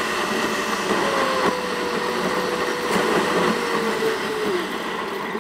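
A car's engine and road noise from inside the cabin, played back sped up about eight times, so it becomes a steady high whine. The whine slowly falls in pitch and drops further near the end as the car slows.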